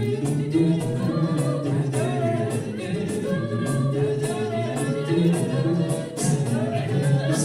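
An a cappella group singing in close harmony, a bass voice holding the low line and vocal percussion keeping a steady beat.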